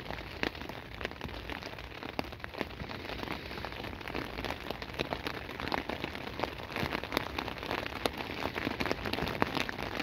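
Rain falling on a tent, heard from inside: a steady hiss thick with sharp individual drop strikes.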